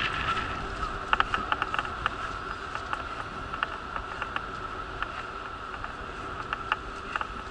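Wheelchair rolling along a paved path: a steady high whine runs under scattered, irregular sharp clicks and rattles.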